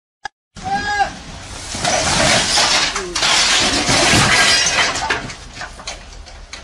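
A forklift's load of stacked slabs and boards toppling and crashing down, a long breaking, clattering crash that fades after about five seconds. A short shout about a second in.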